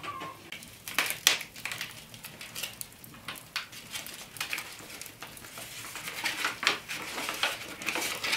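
Paper envelope being handled and torn open, with irregular crinkling and rustling of stiff paper.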